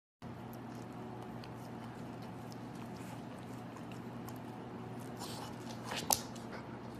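Dog gnawing on a blue rubber Kong-style chew toy: faint clicks and scrapes of teeth on rubber over a steady low hum, with one sharper click about six seconds in.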